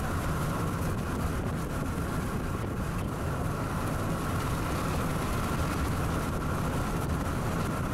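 Steady rush of wind and road noise through the open window of a moving car, buffeting the microphone, with no breaks or sudden sounds.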